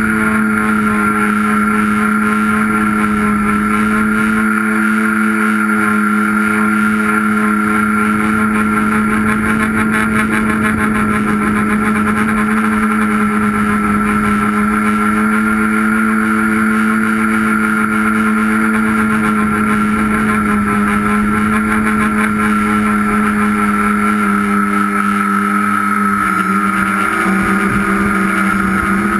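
Electric motors and propellers of a tricopter drone, heard up close from the aircraft itself. They give a steady, loud whine with a hissing rush of air. The pitch shifts slightly near the end.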